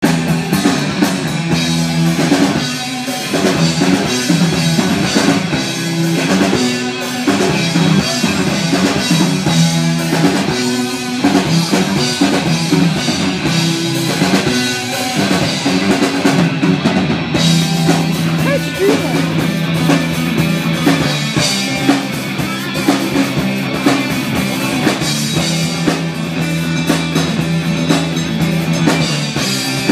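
Live rock band playing, amplified through a PA: a drum kit keeping a steady beat under guitars and held bass notes that move from note to note.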